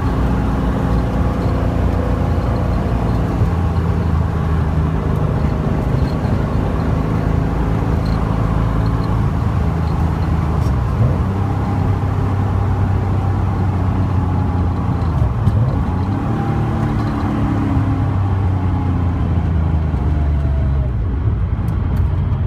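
Car engine running while the car drives along, over steady road noise. The engine note dips and climbs again about sixteen seconds in.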